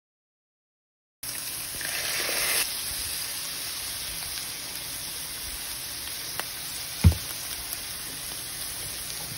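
Silent for about the first second, then ground turkey with onions and green peppers sizzling steadily in a nonstick skillet, louder for a moment around two seconds in. One sharp knock about seven seconds in is the loudest sound.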